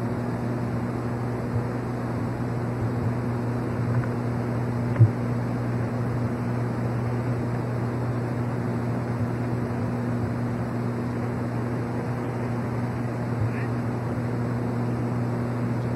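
A steady low hum over an even hiss, with a faint click about five seconds in.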